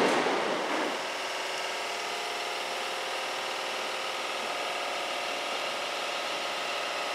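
Loud train running noise fading out over the first second, then a steady electric hum with several steady tones from an electric multiple-unit train standing at the platform, its onboard equipment running.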